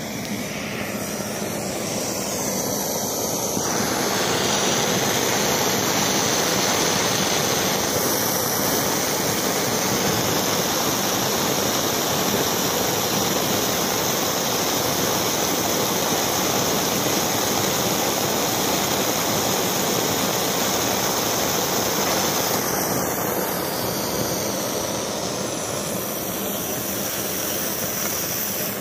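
Daerim Lightning 105 brass pressurised kerosene stove burning at full pressure: the vaporising burner gives a steady rushing hiss, louder through the middle stretch.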